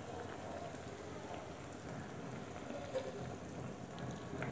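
Thin curry gravy boiling in a metal kadai: a faint, steady bubbling patter, with a couple of soft clicks as halved boiled eggs are set into it.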